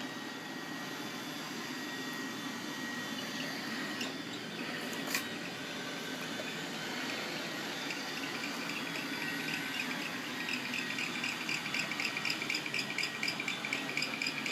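Roomba robot vacuum running with a steady motor hum. A fast, evenly pulsing chatter comes in about eight seconds in and grows louder.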